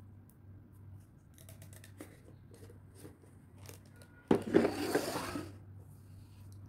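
Spoon scraping Nutella off into a bowl of crumbled sponge cake: a loud scratchy rasp about a second long, starting about four seconds in, after a few faint clicks.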